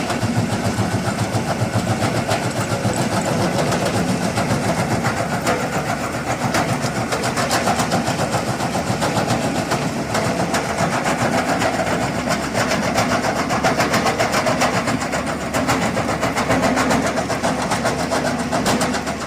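JCB backhoe loader's diesel engine running steadily under load, with a continuous fast rattle and clatter of limestone and demolition rubble being worked through a hydraulic bucket attachment.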